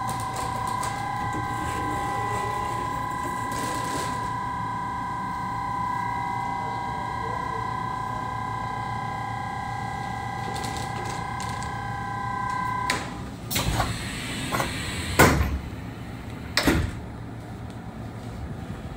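A steady machine whine of several held tones that cuts off about thirteen seconds in, followed by a few sharp knocks and clatters.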